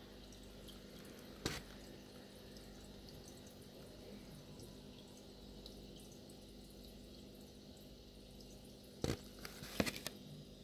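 Aquarium water trickling and dripping faintly over a steady low hum, with scattered faint ticks. A sharp tap sounds about a second and a half in, and a few more sharp taps come close together near the end.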